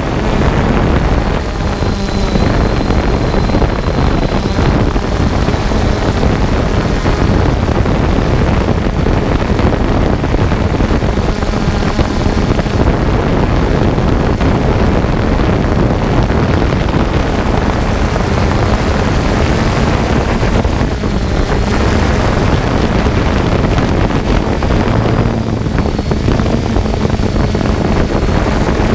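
Quadcopter drone's propellers and motors running steadily, heard through the drone's own onboard camera, with wind on the microphone.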